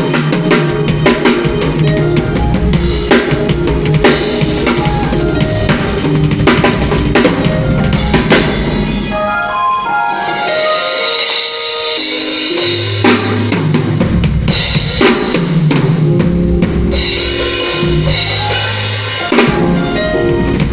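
Band music at a sound check: a drum kit plays a steady beat of kick and snare under sustained chords and low bass notes.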